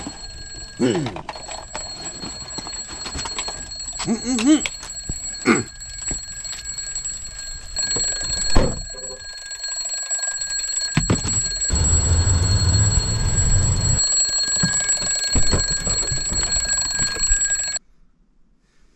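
Mechanical analog alarm clock bell ringing continuously, with a man's short grunts and groans over it and a louder low rumbling noise for a couple of seconds past the middle. The ringing stops abruptly near the end.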